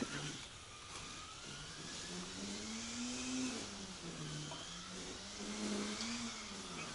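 A faint engine hum whose pitch slowly rises and falls.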